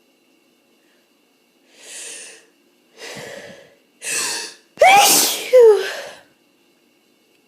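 A person's hay fever sneeze: three breathy build-up breaths about a second apart, each louder than the last, then a loud sneeze about five seconds in, with a second burst right after it.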